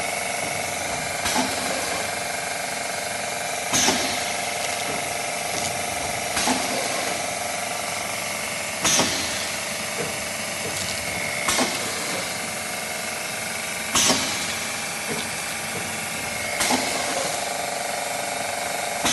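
Ice gel paste packaging machine running its bag-making cycle: a steady mechanical hum, broken about every two and a half seconds by a sharp clack with a short hiss from the horizontal sealing and cutting jaws.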